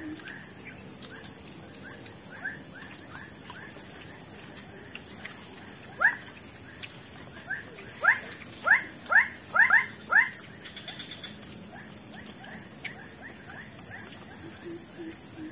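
Steady high buzzing of insects, with a string of short, quick chirping calls from an animal; a run of six or seven louder chirps comes about six to ten seconds in.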